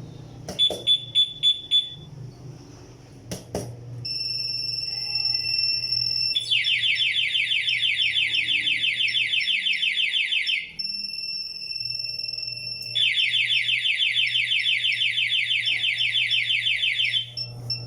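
Electronic alarm clock going off: a quick run of five short high beeps, then a steady high tone that twice breaks into several seconds of rapid pulsed beeping.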